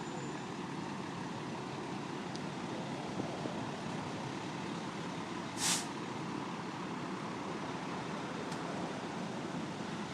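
Steady background noise with one short hiss of air a little past halfway through.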